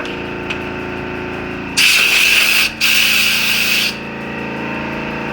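Two loud hissing bursts, about a second each with a brief break between them, over a steady machine hum.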